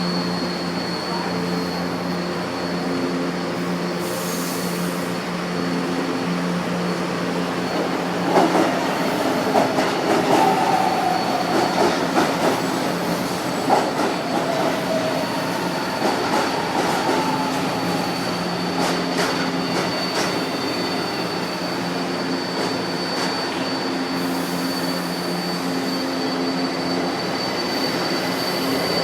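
São Paulo Metro train running through the station: a steady electric hum with a high whine, wheels clicking over rail joints and squealing in the middle stretch.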